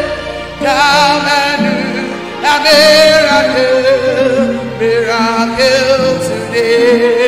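Gospel worship song: a singer holding long notes with a wavering, vibrato-like pitch over steady instrumental backing.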